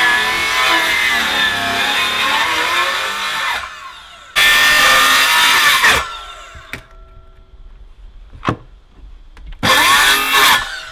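Circular saw cutting through the wooden roof boards in three runs: a long cut that ends about three and a half seconds in, a shorter one starting about four seconds in, and a brief one near the end, its whine wavering in pitch as the blade takes the wood. A few sharp knocks come in the pauses between cuts.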